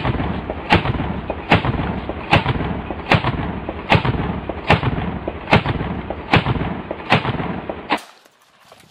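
AA-12 fully automatic 12-gauge shotgun firing a string of about eleven evenly spaced shots, roughly one every 0.8 s, with a rumble between them. The firing stops about 8 seconds in.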